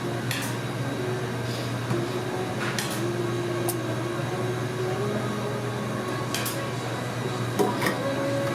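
Waffle-shop kitchen ambience: a steady appliance hum with a few light clicks and clinks scattered through it, two close together near the end.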